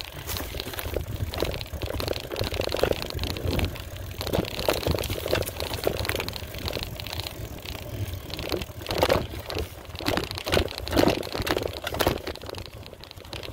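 Mountain bike being ridden over a rough dirt trail: a steady rolling rumble of the tyres with frequent small clatters and rattles of the bike.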